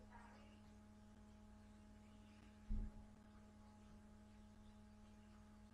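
Near silence: a steady low electrical hum, with one brief low thump about two and a half seconds in.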